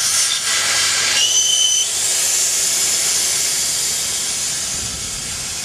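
Air rushing out of a tubeless motorcycle front tire through the open valve stem with the valve core removed. It is a loud hiss that starts suddenly, whistles briefly about a second in, and then slowly fades as the tire deflates.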